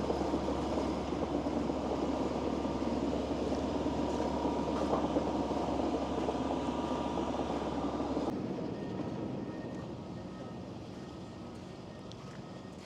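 A steady rumbling noise with a strong low hum, which drops abruptly to a fainter hiss about eight seconds in.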